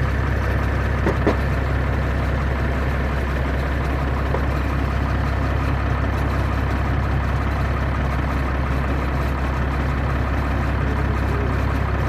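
A large engine idling steadily, with a low, even drone that doesn't change. A couple of light metal clicks about a second in.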